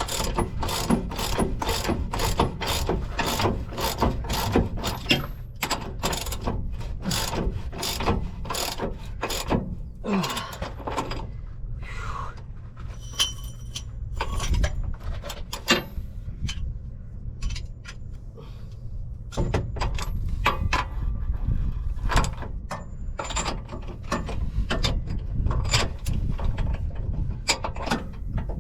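Hand ratchet wrench clicking in repeated strokes, about two a second at first and more spread out later, as the shock absorber's mounting bolts are worked, with a few brief metallic clinks and a steady low rumble underneath.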